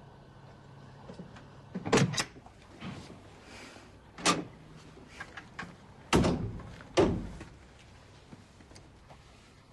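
A door being handled: about five sharp clunks spread over several seconds, two close together near the start and the loudest a little past the middle.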